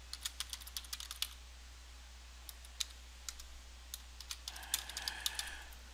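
Computer keyboard typing: a quick run of keystrokes in the first second or so, then scattered single key clicks.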